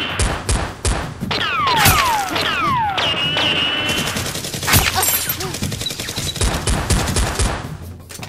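Gunfire sound effects: scattered shots with falling, whistling ricochet-style whizzes, then a fast run of shots about five seconds in.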